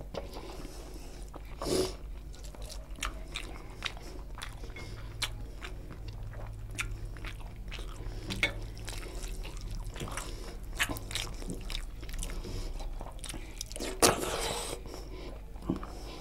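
Close-miked eating: fingers squishing and working rice into curry gravy, with wet clicks and chewing sounds scattered throughout. A louder wet burst comes about two seconds in, and a longer, louder one about two seconds before the end.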